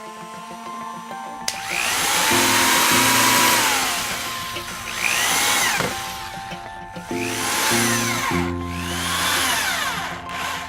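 A handheld power tool runs in four bursts, each spinning up and winding back down in pitch, over background music.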